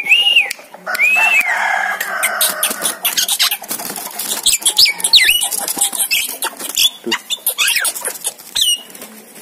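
Javan myna (jalak kebo) calling: two arching whistles at the start, then a run of rapid clicks and short sweeping whistles, with one more whistle near the end.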